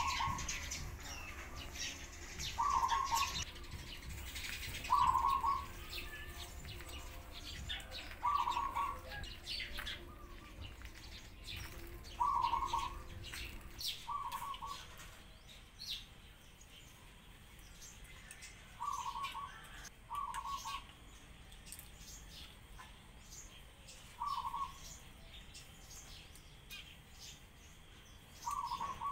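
Pigeons calling: about ten short calls of roughly half a second each, repeating every two to four seconds, with sparrows chirping throughout, busiest in the first half.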